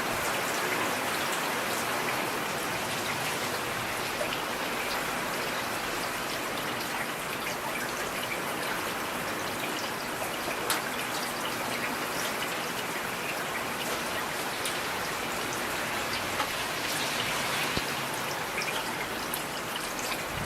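Steady rain falling, a dense hiss of drops with many small individual drop taps.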